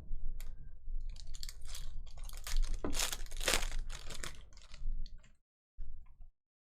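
Trading cards and a foil pack wrapper being handled: a rapid run of crinkles, clicks and rustles that stops about five and a half seconds in, with one more short rustle just after.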